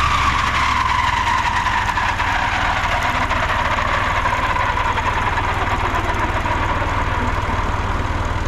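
Tractor engine running steadily with a high mechanical whine from the driven implement, the whine dropping in pitch over the first few seconds and then holding steady.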